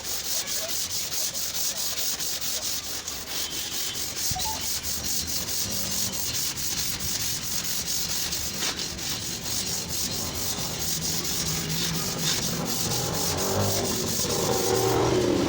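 Sanding on car bodywork: a steady rasping with rapid, even strokes. A low hum grows in near the end.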